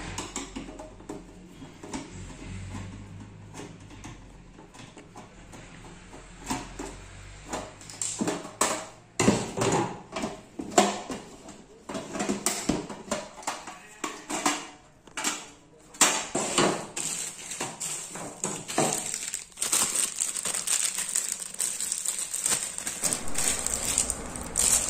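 Clicks, knocks and light metal clatter of a sheet-metal network video recorder case being opened by hand: case screws turned out with a screwdriver, then the lid lifted off and the case handled. The first several seconds are quieter, and the clatter comes thick from about a third of the way in.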